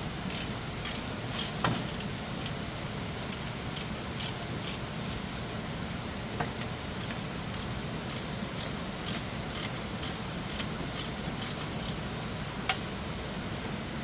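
Hand ratchet clicking in short, irregular runs on the catalytic converter nuts, with a few sharper metal clinks, over a steady low background hum.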